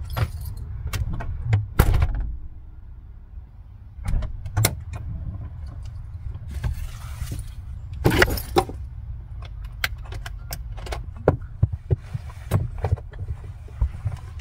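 Knocks, clicks and rustling of things being handled, over a steady low rumble. The loudest knock comes about two seconds in, a louder scraping rustle about eight seconds in, and then a run of small clicks.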